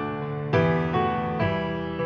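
Piano music: a melody of notes and chords struck about every half second, each ringing on and fading.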